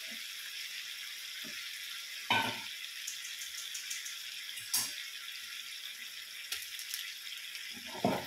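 Onion-and-masala mixture with water sizzling steadily in a frying pan on a gas burner. Three short knocks come through it: one about two seconds in, one a little before the five-second mark, and a louder one near the end.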